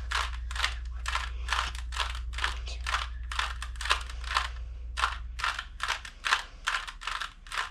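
Plastic 3x3 Rubik's cube faces being turned in quick succession, each turn a short clicking rasp, about two or three a second.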